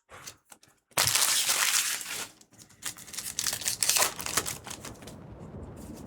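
Foil booster-pack wrapper crinkling as it is handled and torn open. The crinkling is loud from about a second in and comes back in irregular crackles a couple of seconds later.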